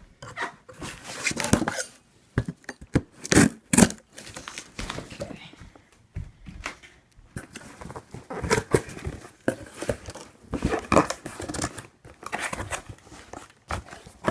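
Cardboard shipping box being torn open by hand: tape and cardboard ripping and rustling in irregular bursts, loudest in two sharp rips about three and a half seconds in.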